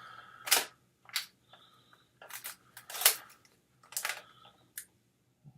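Sharp plastic clicks and snaps from handling an old Polaroid OneStep instant camera: four loud clicks with smaller ticks in between.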